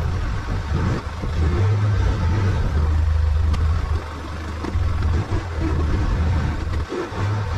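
Arctic Cat side-by-side's engine running with a low drone that swells and dips in level several times.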